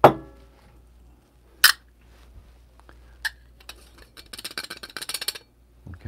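A metal coffee dosing cup clinks sharply with a brief ring, and two lighter clicks follow. Near the end comes about a second of rapid rattling taps as ground coffee is knocked out of the cup into the espresso portafilter basket.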